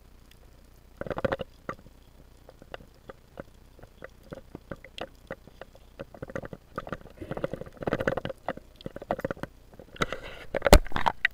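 Underwater sound around a spearfisher working a speared sea bream on the rocky bottom: scattered sharp clicks and crackles, several gurgling bursts, and one sharp knock near the end.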